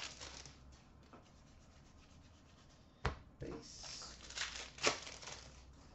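Cardboard trading cards sliding and rubbing against one another as a stack of hockey cards is handled and flipped through. There is a sharp tap at the start and another about three seconds in, followed by a stretch of dry rubbing with a few sharper strokes.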